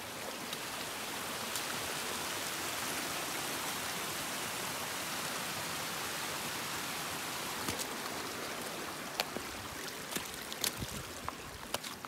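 Water of a small mountain stream cascading over rocks: a steady rushing hiss. In the last few seconds a few footsteps land on wet ground.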